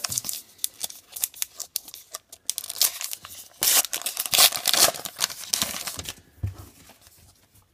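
Wrapper of a 2018 Topps Gypsy Queen baseball card pack crinkling and being torn open by hand. The loudest rip comes around the middle, and the crackling thins out near the end as the cards come out.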